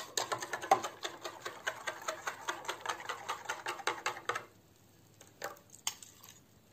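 A metal spoon clicking quickly and evenly against the sides of a stainless steel saucepan as cocoa is stirred into hot milk; the stirring stops about four and a half seconds in, leaving a few single clinks.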